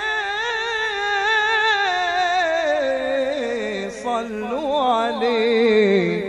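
A man singing an Arabic religious praise song for the Prophet (madih) into a microphone: one long, ornamented melismatic line with a wide vibrato, held without a break. About halfway through, the line slides down to a lower pitch.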